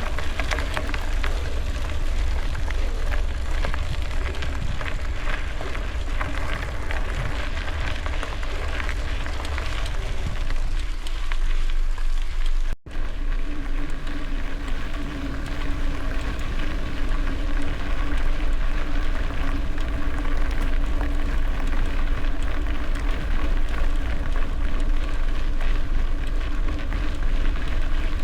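Bicycle tyres crunching and crackling over gravel while riding, with wind buffeting the microphone as a heavy low rumble. The sound cuts out for an instant about halfway through, after which a faint steady hum runs under the crunching.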